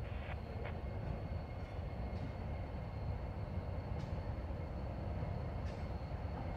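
Freight cars rolling across a steel truss trestle: a steady low rumble of wheels on rail, with a sharp click every couple of seconds.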